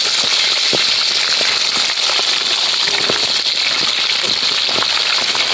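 Chicken pieces deep-frying in a wok of hot oil, a steady loud sizzle of oil bubbling around the meat.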